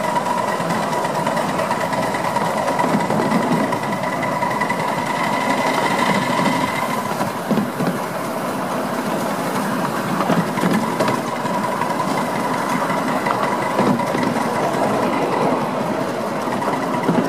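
Krauss 5-inch gauge miniature locomotive and its train running along the track: a steady mechanical running sound with a steady high whine and irregular low knocks.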